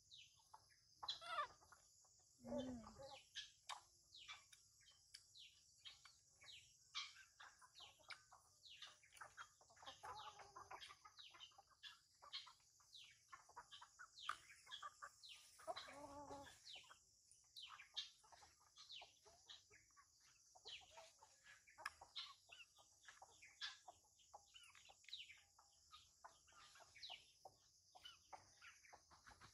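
Faint outdoor ambience: many short bird chirps over a steady high hiss, with a few louder, longer calls, one about three seconds in and one around sixteen seconds in.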